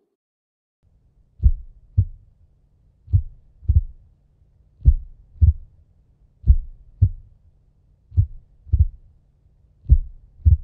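Heartbeat sound effect: six slow lub-dub double thumps, one every second and a half or so, over a faint low hum.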